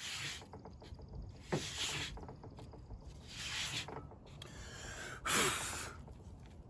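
Wood board rubbing a cotton-and-ash fire roll back and forth, a steady low scrubbing, under heavy breaths of effort about every two seconds.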